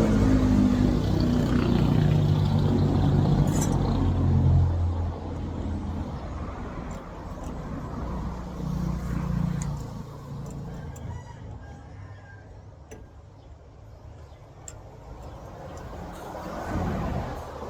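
A motor vehicle engine running, loud for the first four seconds or so and then fading away, with a few light clicks in the quieter stretch that follows.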